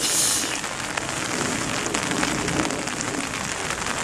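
Steady rain pattering close to the microphone, with a brief louder rustling hiss in the first half second.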